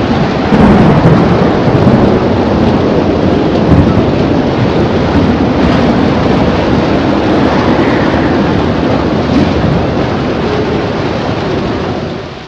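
Loud, steady rushing noise of wind with a low rumble, like a storm recording, fading out at the end.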